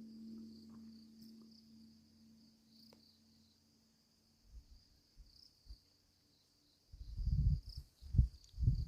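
Buddhist temple bell's hum dying away after a stroke, fading over the first few seconds, over a steady high chirring of crickets. Near the end come a few loud, muffled low thumps.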